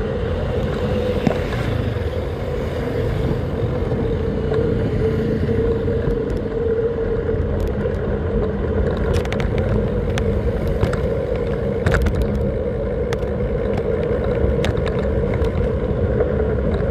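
Steady travel noise while riding along a paved street: low wind and road rumble with a constant hum, and a scattering of sharp clicks or rattles in the second half.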